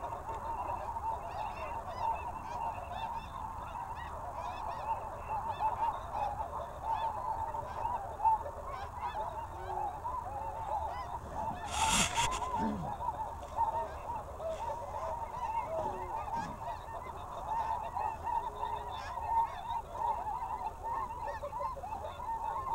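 Snow goose calls: a dense chorus of many short overlapping honks, with one brief knock about halfway through.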